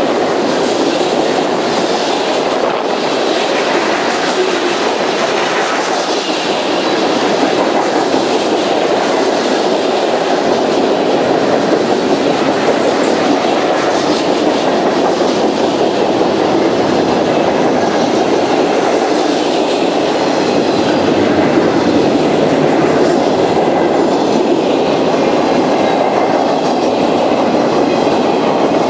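Freight cars of a mixed freight train rolling past: a steady rumble and clatter of steel wheels on rail, with clicking over the rail joints.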